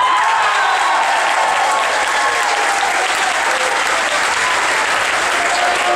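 Spectators in the stands clapping and cheering after a point in a volleyball match, a steady patter of many hands with a few shouts mixed in.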